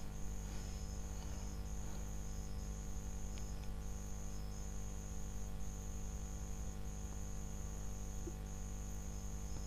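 Faint background noise: a steady low electrical hum under a thin, high trilling tone that keeps breaking off and resuming in stretches of about a second.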